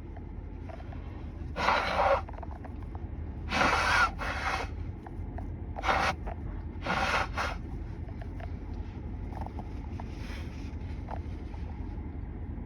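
About six short, noisy nasal sniffs and breaths from a nose irritated by pollen after a sneezing fit, the last one faint. Under them runs the steady low hum of a car's air conditioning.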